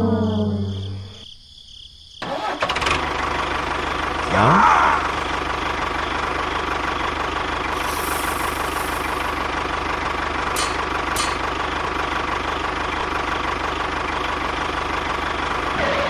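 Tractor engine idling steadily, starting up about two seconds in after a falling brass music phrase fades out. A brief rising tone sounds over it about four seconds in.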